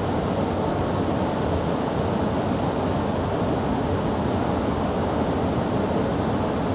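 Fast mountain river rushing steadily: an even, unbroken noise of running water.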